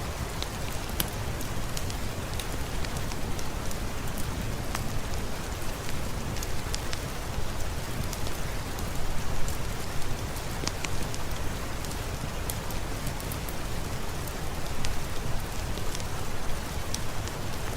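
Steady rain falling, with scattered sharp clicks and crackles throughout.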